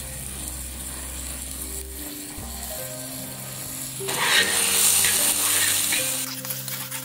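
Background music with soft held notes over the faint hiss of river prawns frying in oil. About four seconds in, a loud burst of sizzling and scraping lasts about two seconds as a metal spatula stirs the prawns on the flat pan.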